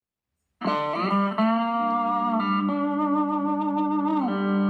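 Guitar music starting about half a second in, with long held notes that slide up and down in pitch between them.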